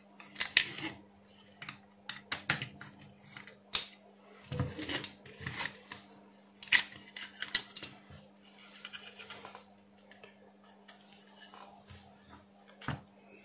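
Irregular clicks, taps and short scrapes of a small power-supply circuit board and its sheet-metal tray being handled and turned over on a workbench, over a low steady hum.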